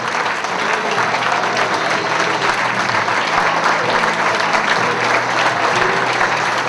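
A crowd of guests applauding steadily, many hands clapping at once.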